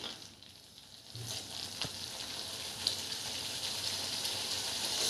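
Chicken frying in spiced masala in a pan, sizzling. The hiss starts about a second in and slowly grows louder, with a few light taps, likely from the stirring spoon.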